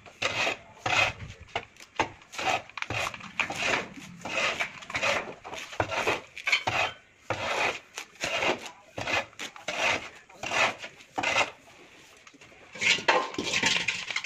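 Screwdriver working the screw terminals of an RCCB while wires are pushed in and the plastic breaker is handled: a run of irregular metal clicks, scrapes and rattles. A short lull comes near the end, then a few louder clicks.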